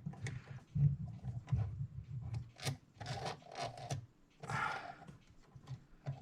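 Irregular small clicks, taps and rubbing from parts of a mechanical clock movement being handled and settled into place during reassembly.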